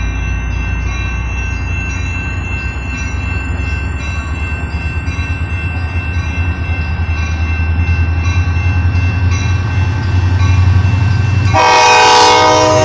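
F40PHM-2C diesel locomotive idling at a standstill with a steady low rumble. About a second before the end, the train's horn sounds a loud chord, signalling that the train is about to depart.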